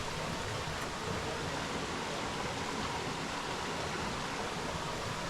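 Steady rush of falling water, an even hiss without breaks.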